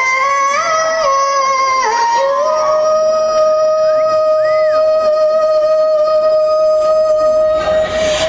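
Dance music with a wordless melody that settles on one long held note for about five seconds, then gives way to a new section near the end.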